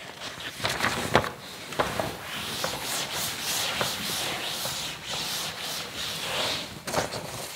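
A cloth rubbed back and forth across a chalkboard, wiping off chalk writing: a scrubbing hiss that is strongest in the middle, with a few light knocks.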